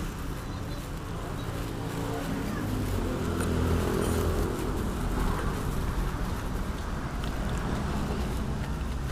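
Motor vehicle engine running amid road traffic, its hum swelling for a few seconds in the middle.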